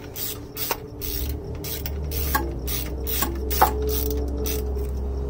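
13 mm socket ratchet clicking in quick back-and-forth strokes, a few clicks a second, as it runs steel bolts down into the transmission case. A low steady hum comes in about a second in.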